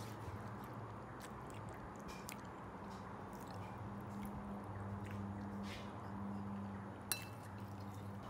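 Someone eating noodles from a bowl: soft handling and chewing sounds, with a metal spoon and chopsticks clicking against the bowl now and then and one sharp clink about seven seconds in, over a steady low hum.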